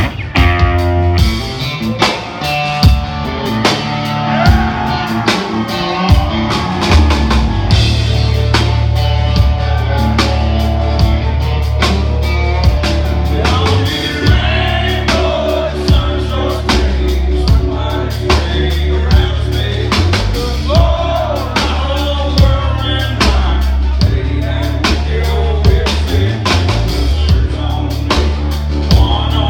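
Southern rock band playing live: drum kit keeping a steady beat under heavy electric bass and electric guitars, with a man singing lead at the microphone.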